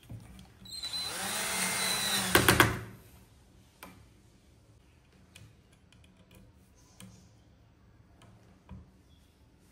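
Cordless drill-driver running for about two seconds, driving a screw into a 3D-printed bearing holder, its motor whine ending in a quick rattle of clicks as it stops. A few faint taps follow.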